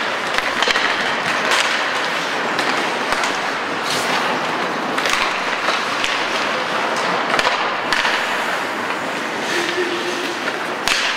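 Ice hockey play on an indoor rink: skate blades scraping and carving the ice, with sharp clacks of sticks and puck scattered through it.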